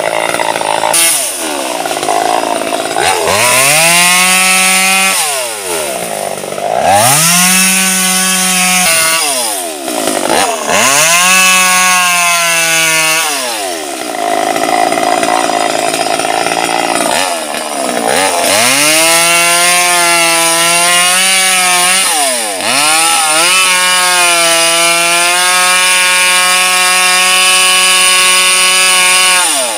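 Two-stroke chainsaw cutting mango wood. It is revved up to full speed and let fall back to idle five times, idling a few seconds about halfway through. It ends with a longer steady cut at full throttle.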